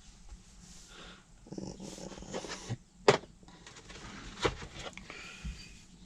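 Steering wheel puller being fitted and tightened on a truck's steering wheel: soft handling rustle with a few sharp metal clicks, the sharpest about three seconds in and another about a second later.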